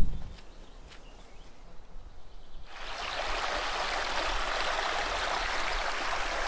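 Running water of a stream, a steady rushing hiss that starts abruptly about a third of the way in. Before it, a quieter stretch with a low rumble and a few faint clicks.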